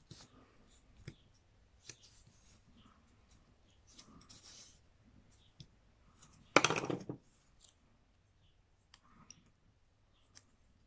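Light clicks, taps and soft rubbing of a small paper leaf and a bone folder handled on a foam work mat, with one short, louder burst about six and a half seconds in.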